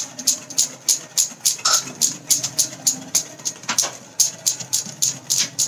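Wire whisk stirring dry flour and cocoa powder in a glass bowl, the wires clicking against the glass about four times a second.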